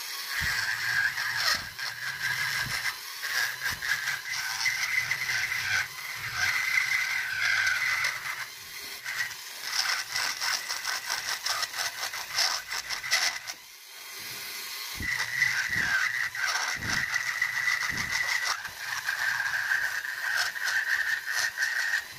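Dremel rotary tool running at high speed with a steady whine, its bit grinding and chattering against walnut wood as the figure is carved. The sound eases for about a second two-thirds of the way through, then picks up again, and cuts off suddenly at the end.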